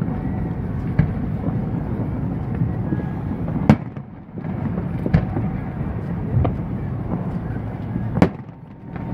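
Aerial fireworks bursting: five sharp booms a second or so apart, the loudest a few seconds in, over a continuous low rumble from the show.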